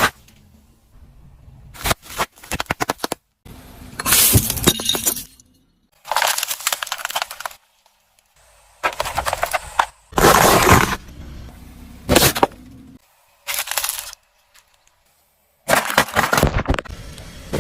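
Brittle objects crushed under a car's tyres, cracking and crunching in a series of short bursts, each cut off abruptly with silence between them; one burst a couple of seconds in is a quick run of sharp cracks.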